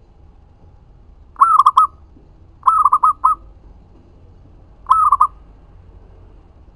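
Zebra dove (perkutut) singing: three short cooing phrases, each a quick run of three or four notes, the first about a second and a half in and the last about five seconds in.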